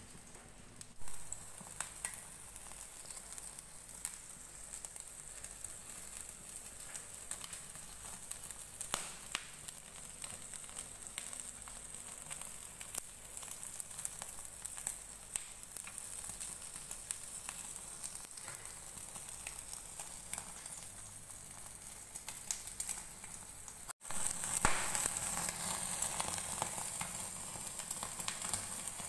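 Fatty meat sizzling and crackling on a wire grill rack over a gas burner, with many small pops of spitting fat. It gets louder after a brief break about 24 seconds in.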